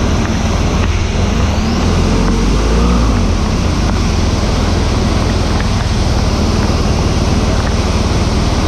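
Motorcycle on the move, heard from on board: a loud, steady rush of wind over the microphone with the engine running underneath, its note shifting briefly about two seconds in.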